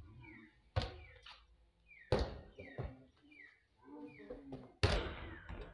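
A volleyball being hit by hand during a rally: sharp smacks about a second in, a little after two seconds, and again near the end, with a couple of smaller taps between them.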